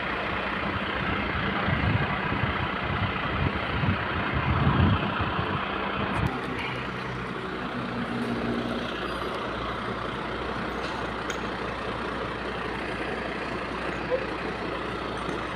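Fire engine running steadily, driving its water pump to feed the hose lines, a constant rushing noise under a low hum. The low rumble is heavier over the first six seconds, then settles.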